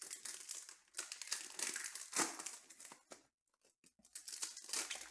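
Foil wrappers of Panini Mosaic basketball card packs crinkling and tearing as they are opened by hand, in two spells with a brief pause a little past halfway.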